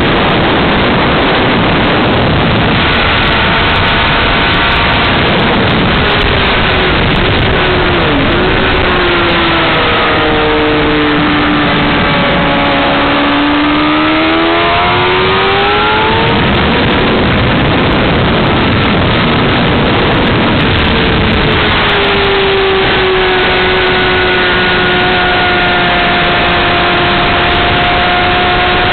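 A Honda CBR600RR's inline-four engine heard from onboard at speed, largely buried under a steady rush of wind on the microphone. The engine pitch falls and rises several times as the revs drop and climb, then climbs slowly near the end.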